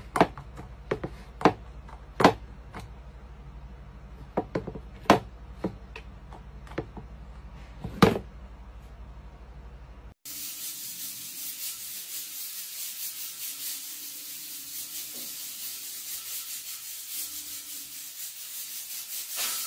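A cat pawing at the water in a plastic pet drinking fountain, making a run of irregular sharp taps over a low steady hum. About ten seconds in, the sound cuts abruptly to a steady hiss.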